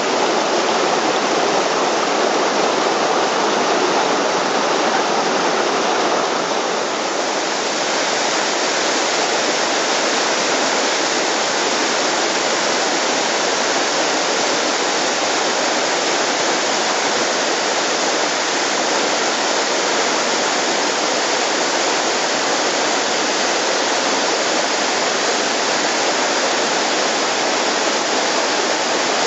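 Steady rush of a mountain creek spilling over rock ledges in a cascading waterfall and white-water rapids. The tone of the rushing water shifts slightly about seven seconds in.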